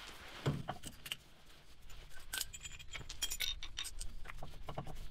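Light metallic clinks, ticks and knocks of tools and brake parts being handled: the caliper piston rewind tool coming off the rear brake caliper, with a knock about half a second in and a quick run of clinks later on.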